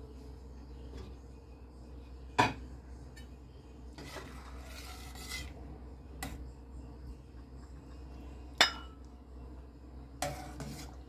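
Metal ladle and glass pot lid clinking against a stainless steel soup pot as the soup is uncovered, stirred and ladled out. Two sharp clinks are loudest, about two and a half seconds in and near nine seconds, with lighter knocks and a soft stirring rustle between.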